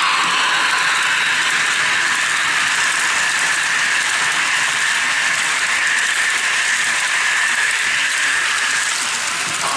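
Model train running along the track, a steady high-pitched whirring and rolling noise from its motor, gears and wheels on the rails.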